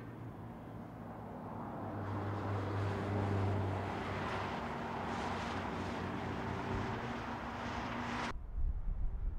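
Two BMW X6 M SUVs driving past on a race track, their engines swelling to the loudest point around three seconds in and then fading. Near the end the sound cuts abruptly to a low rumble.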